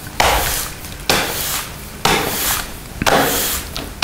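A push broom is swept in strokes across a smooth, epoxy-coated concrete floor. There are four strokes about a second apart, each starting with a sudden scuff that fades.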